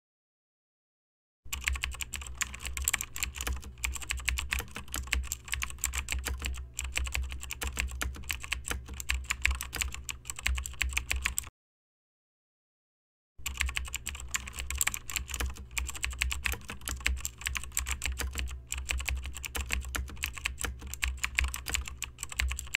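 Rapid computer keyboard typing over a low hum, in two runs of about ten seconds each. Each run starts and stops abruptly, with a silent gap of about two seconds between them near the middle.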